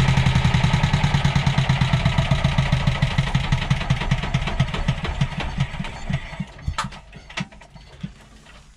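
Bukh DV10 single-cylinder marine diesel running, then shut down: its beat slows and fades over about six seconds. A few separate knocks come as it turns its last revolutions and stops.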